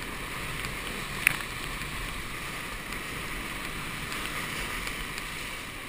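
Whitewater rapids rushing steadily around a raft, with one sharp knock a little over a second in.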